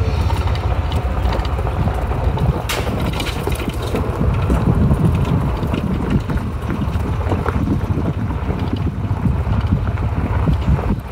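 Golf cart rolling slowly over a gravel campground road: a steady rumble and crackle of tyres on gravel with the cart rattling, and wind buffeting the microphone. One sharp click about three seconds in.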